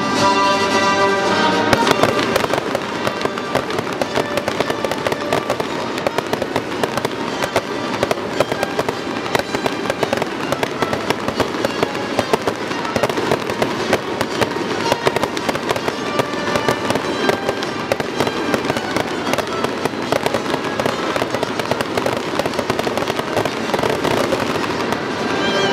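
Music for the first two seconds, then fireworks crackling and popping densely and without a break as aerial shells burst overhead, with music still playing underneath.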